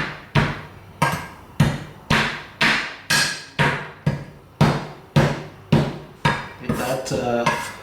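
Garlic cloves being smashed with a steady run of hard blows, about two a second, to crush them and release their juice.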